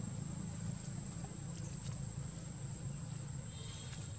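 Steady forest ambience: one constant high-pitched insect tone over a low, even rumble, with a few faint ticks.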